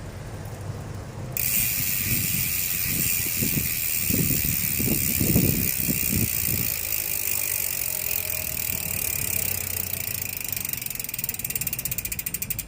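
Koozer XM490 six-pawl rear bicycle hub freewheeling at medium speed: a steady, fast ratchet buzz as the pawls click over the ratchet ring. It starts about a second in, with a few low knocks in the first half, and near the end the buzz begins to slow into separate clicks as the wheel spins down.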